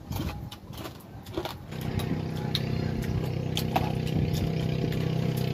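An engine comes in about two seconds in and runs steadily at an even pitch, over a few light clicks and knocks.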